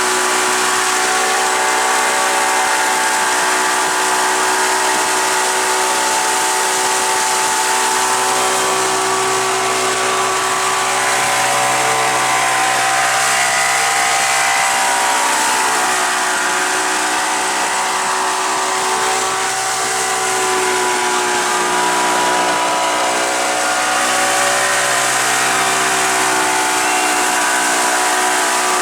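Motorboat engine running steadily, its pitch drifting slowly up and down, over a constant hiss of wind and spray.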